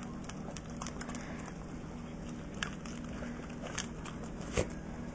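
Dogs licking ice cream off a spoon: a few faint, scattered wet clicks and smacks, one sharper click near the end, over a steady low hum.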